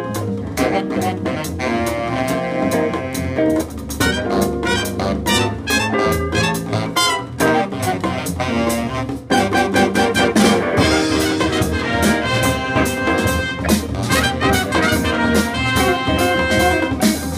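Small jazz ensemble playing live: saxophones and trumpets with a drum kit. After a brief break just past nine seconds, a louder passage comes in.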